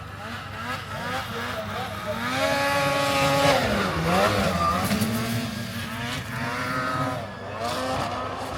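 Two-stroke snowmobile engine revving hard. Its pitch climbs, drops sharply about four seconds in, then climbs again.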